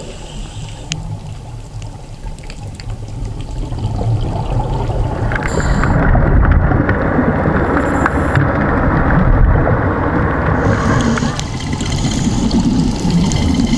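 Underwater ambient noise picked up by a diving camera: a steady low rumble with water gurgling and hiss. The sound changes abruptly about five seconds in and again near eleven seconds.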